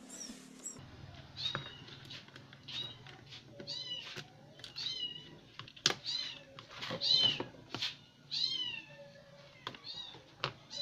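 Repeated short, high-pitched mews with a falling pitch, typical of a kitten, with a few sharp clicks in between.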